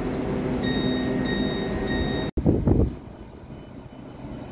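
Southeastern Highspeed Class 395 Javelin electric train running along the platform with a steady low rumble and hum, while a high-pitched beeping sounds in short pulses from about a second in. Past halfway the sound cuts abruptly, followed by a brief loud thump and then a quieter, steady train rumble.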